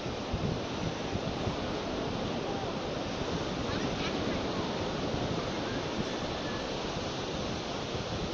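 Sea surf washing steadily on a beach, with wind buffeting the microphone.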